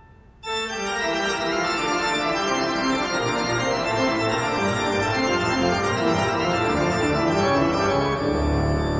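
Organ music, a busy keyboard piece with many changing notes, starting abruptly about half a second in; a deep bass comes in near the end.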